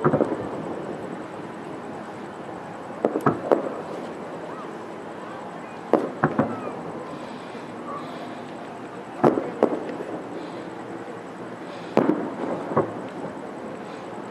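Aerial firework shells bursting in the sky: five volleys of two or three sharp bangs each, about three seconds apart.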